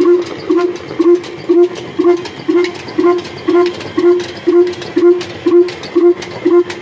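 Old Ruston diesel engine running steadily at a slow, even beat, about two pulses a second, each with a short ringing note.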